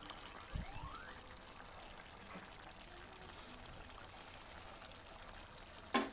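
Pork stew sauce simmering in an aluminium wok: faint steady bubbling and hiss. A sharp click near the end.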